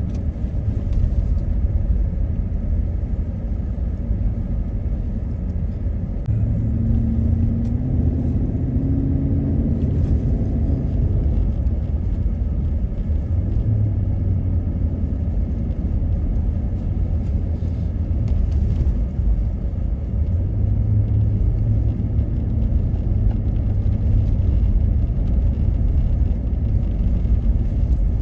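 Car driving: a steady low rumble of engine and tyres, with the engine note rising for a few seconds about seven seconds in.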